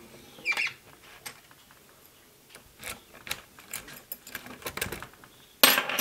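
Scattered metallic clicks and knocks as a euro cylinder lock is set and clamped into a small bench vise, with a louder clatter shortly before the end.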